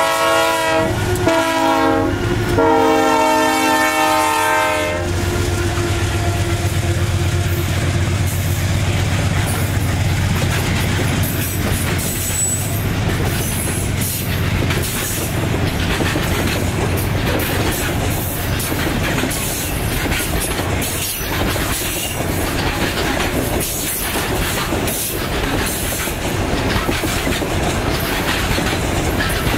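Freight train's diesel locomotives sounding a chord horn in several blasts, the last ending about five seconds in. Then a steady diesel rumble with the freight wagons clattering and clicking over the rail joints as the train rolls by.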